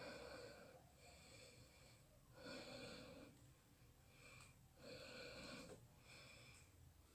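Faint, slightly whistling breaths through the nose, close to the microphone: several breaths in and out in a slow, even rhythm, alternately stronger and weaker.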